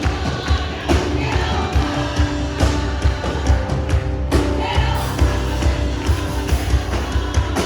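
Brazilian gospel worship song with a steady drum beat, held instrumental notes and some singing.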